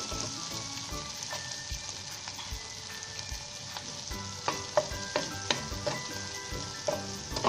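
Onions, prawns and dried red chillies sizzling steadily in hot oil in a pan. From about halfway through, a metal spatula scrapes and stirs against the pan in quick strokes.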